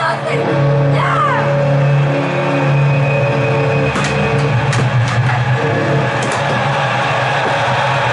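Recorded arena crowd noise with music, played from a goal-horn app through a large speaker. A brief squeak comes about a second in, and a few sharp clacks from the mini-sticks game fall between about four and six and a half seconds.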